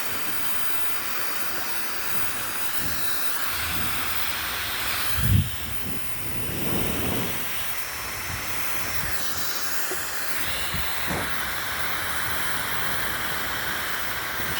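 Hair dryer blowing, a steady rushing hiss whose tone shifts a few times as it is moved about, with a short low thump about five seconds in.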